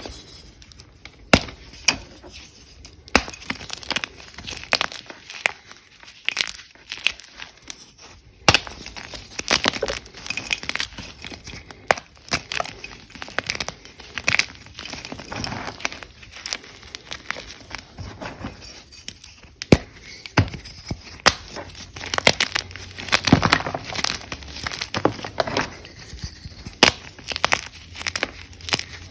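Blocks of Ader gym chalk being crunched and crumbled, making a dense, irregular run of crisp cracks and crumbly crunches. A few louder snaps stand out.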